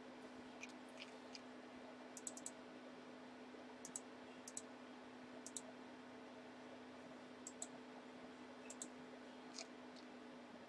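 Faint, scattered clicks of a computer mouse and keyboard, a few at a time, over a low steady electrical hum.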